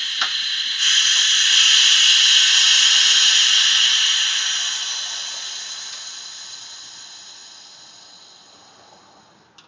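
Compressed air hissing through the valve of a pneumatic strut spring compressor as it compresses a coil spring. The hiss gets stronger about a second in, then fades away slowly over several seconds. A single click comes just after the start.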